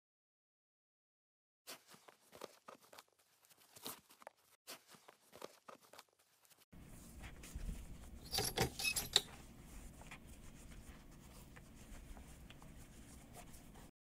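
Shoelaces being tied on canvas high-top sneakers: faint, scattered rustles and small clicks of lace against shoe. Partway through, a steady hiss of room tone comes in, with a brief cluster of rustling clicks, the loudest sound.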